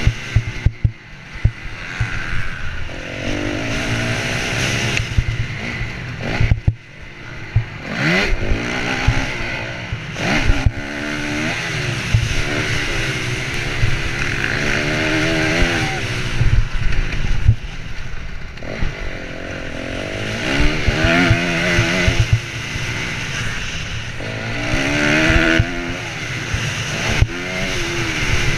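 Honda CRF250R's single-cylinder four-stroke engine at racing pace, revving up and dropping back again and again through throttle and gear changes, heard from the rider's helmet. Scattered knocks and noisy rushes run through it.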